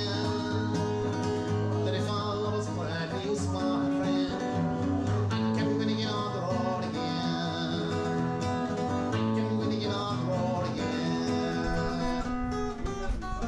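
Live acoustic guitar strummed steadily, with a man singing along.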